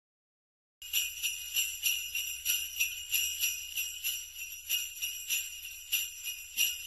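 Sleigh bells jingling in a steady, even rhythm of about three shakes a second, starting just under a second in.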